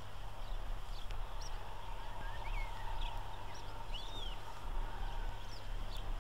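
Birds calling and chirping in open meadowland, short scattered chirps and a few arching calls, over a steady hiss and a low hum.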